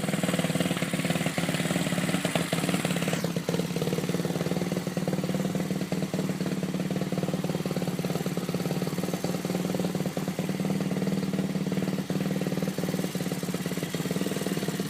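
The small engine of a Whizzer-style motorized bicycle idling steadily. A hiss over the engine note stops about three seconds in.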